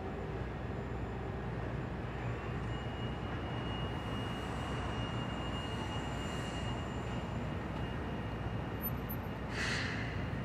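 Steady street traffic noise with a low hum, a thin high whine setting in about two seconds in, and a short hiss about a second before the end.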